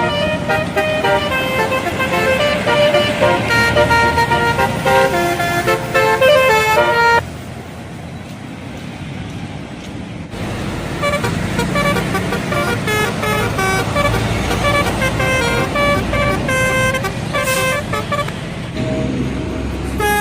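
Bus telolet horn, a multi-trumpet air horn, playing a quick tune of stepped notes. It stops for about three seconds partway through, then plays again.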